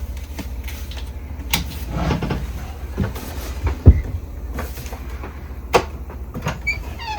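Sharp plastic clicks and knocks as parts of a 3D printer's filament feeder are handled and fitted, the loudest knock about four seconds in, over a steady low hum. A few short high chirps near the end.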